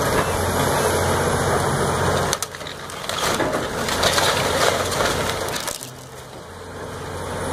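Caterpillar 336E hydraulic excavator demolishing a wood-framed house: a steady low diesel engine hum under the cracking and splintering of timber and debris being crushed, densest from about two and a half to six seconds in.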